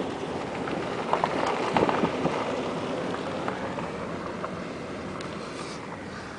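Steady road and wind noise from a vehicle driving over rough quarry roads, with a few light knocks and rattles in the first couple of seconds, easing off gradually.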